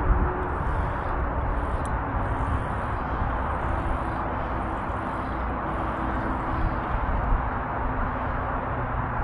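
Steady outdoor background noise: a low rumble and hiss with a faint hum, with no single event standing out.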